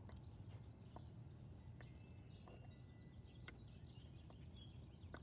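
Near silence: faint room hum with a few soft scattered clicks, about one a second.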